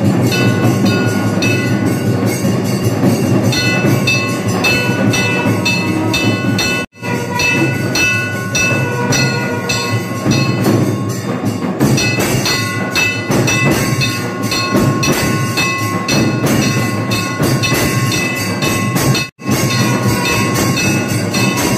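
Loud temple ritual music of rapid drum beating and clanging bells, with high ringing tones held over it. It cuts out briefly twice, about seven seconds in and near the end.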